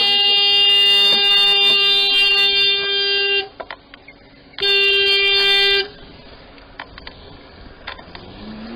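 A horn sounding two long blasts on a single steady note, the first about three and a half seconds long and the second just over a second. Near the end a faint engine note rises as a car pulls away.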